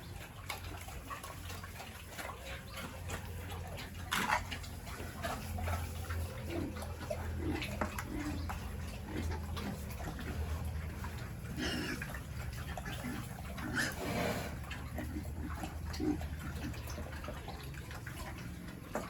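Pigs grunting and shuffling in their pen with water splashing and dripping, over a steady low hum, with a few sharp knocks, the loudest about four seconds in.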